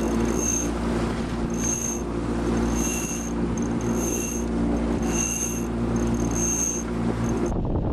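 A steady mechanical drone, like a boat engine running, with a short high-pitched squeak repeating about once a second. Both stop abruptly near the end.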